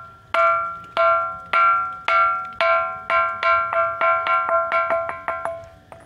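A 'bell stone' ringing rock struck again and again with a small hand-held stone, each strike giving a clear bell-like ring with several pitches that dies away. The strikes speed up from about two a second to about four a second, then stop shortly before the end.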